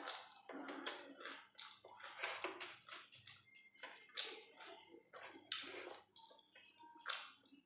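Close-miked eating sounds: a person chewing a mouthful of roti and chicken curry, with fingers tearing more roti on the plate. Irregular short crackly sounds, a couple a second.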